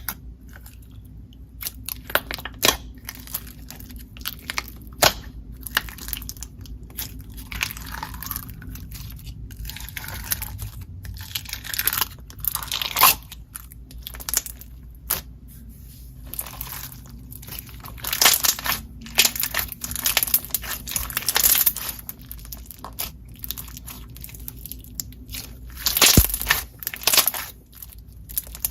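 Slime being pressed, poked and stretched by hand, giving crunchy, crackling sounds and many sharp clicks and pops.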